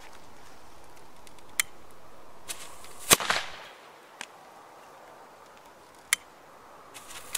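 Old firecrackers from 1990 going off one at a time: a fuse hissing for about three seconds, then a loud, sharp bang with a short crackle after it. A few small clicks follow, and a second bang starts right at the end.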